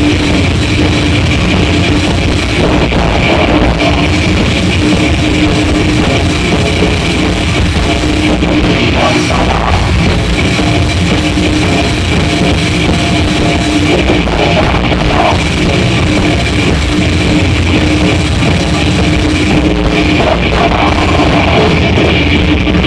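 Live grindcore from a metal band: distorted guitars and bass over drums, loud and dense throughout.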